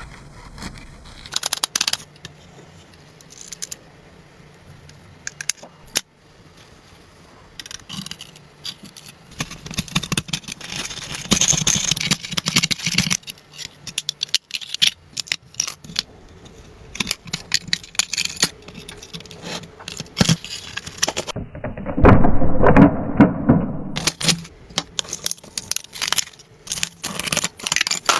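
Scraping, knocking and rattling of hand work on a rusted car, cut together from several short clips, with a louder, fuller-sounding stretch about 22 seconds in.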